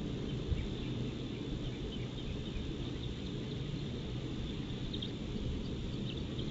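Steady low rumble of wind noise on an outdoor nest-cam microphone, with faint, short, high chirps scattered through it.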